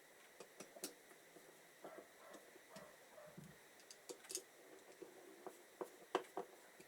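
Scattered light clicks and taps of small carburettor parts being handled and fitted during reassembly, in a quiet room; the sharpest clicks come about six seconds in.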